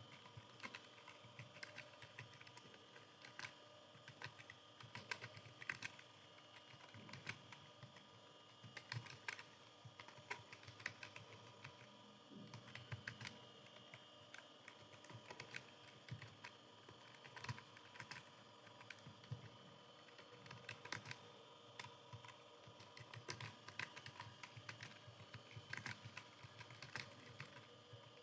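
Continuous touch-typing on a computer keyboard: a fast, uneven stream of faint key clicks with brief pauses now and then.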